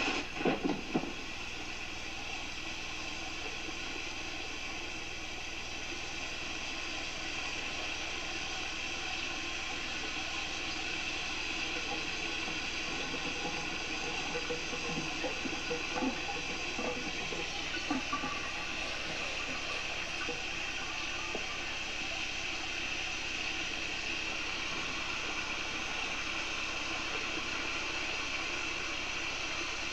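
A shower running: a steady hiss of spraying water on an old film soundtrack.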